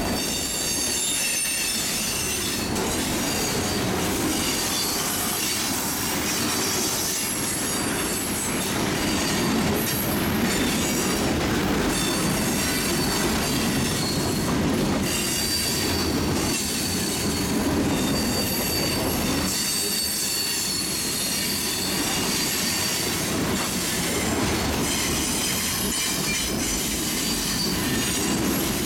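Freight train cars rolling past on steel wheels, a steady rumble overlaid with thin, high-pitched wheel squeal. A sustained squealing whine sets in about halfway through.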